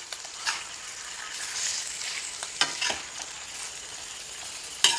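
Raw chicken pieces sizzling in hot mustard oil in an iron kadhai while being stirred with a metal slotted ladle. The ladle scrapes and knocks against the pan a few times over the steady sizzle.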